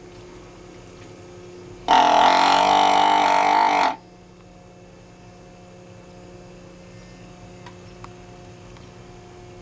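Hand-held deer call blown once, a loud pitched call held steady for about two seconds, over a faint steady hum.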